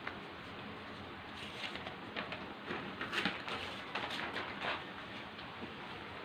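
Faint rustling and crinkling of a large sheet of chart paper being taken off a board: a string of irregular soft crackles in the middle of the stretch over a steady hiss.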